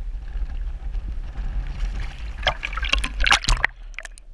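Wind buffeting the microphone, then a burst of splashing as the camera-mounted landing net holding a trout is dunked into the water, after which the sound turns dull and muffled underwater.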